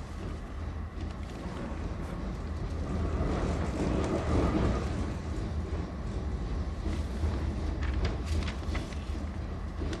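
Tram running, heard from inside the car: a steady low rumble that swells around the middle, with a few short clicks near the end.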